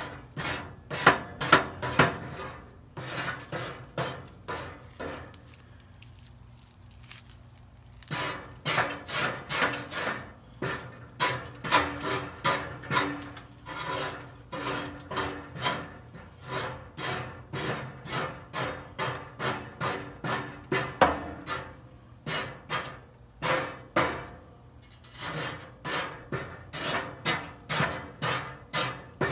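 Rhythmic back-and-forth scraping inside a Weber SmokeFire pellet grill, about two or three strokes a second, on metal fouled with ash and burnt residue from a grease fire. The scraping pauses for a few seconds near the start, then resumes steadily.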